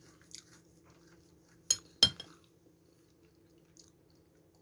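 Metal spoon clinking against a dish twice in quick succession about two seconds in, with a fainter tick before.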